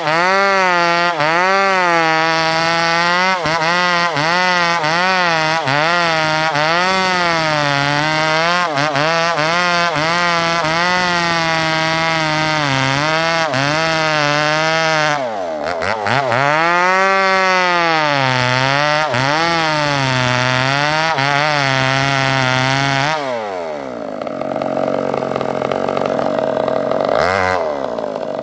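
Gasoline chainsaw ripping lengthwise through a squared terap log, its engine speed wavering under load as the bar cuts along the grain. Midway the revs dip and recover. About 23 seconds in it drops to a steady idle, then revs back up near the end.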